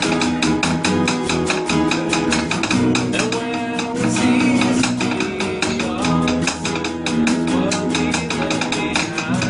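Acoustic rock band playing a song: acoustic guitars strummed in a quick, steady rhythm, with melodic lines moving over the chords.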